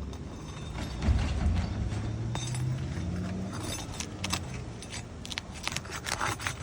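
Metal hand tools clicking and scraping on asphalt roof shingles, busiest in the second half, over a low hum that rises slightly in pitch for a couple of seconds early on.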